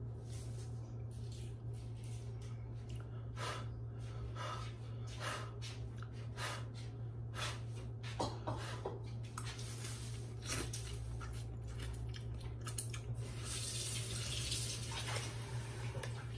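A person slurping and eating instant noodles in broth: a run of short wet slurps, with a longer slurp near the end. A steady low hum runs underneath.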